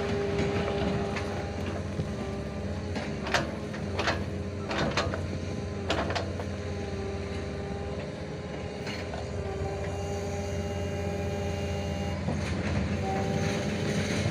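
Excavator's diesel engine running steadily with a held whine over it, and several sharp metal clanks between about three and six seconds in.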